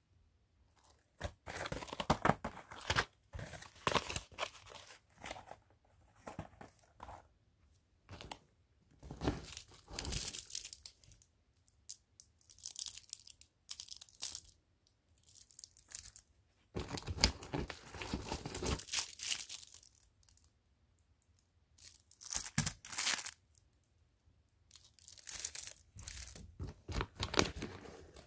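Cardboard box and paper wrapping of small fireworks being handled and opened: irregular bursts of rustling with small clicks, separated by short quiet pauses.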